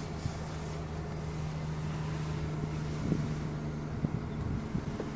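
Steady low hum of a vehicle's engine and road noise from inside the cabin, with a few faint clicks.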